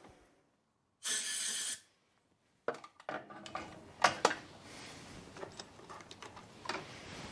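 Metal lathe spindle coasting down to silence, a short hiss about a second in, then light metallic clinks and knocks of small tools handled at the stopped three-jaw chuck, two of them louder about four seconds in.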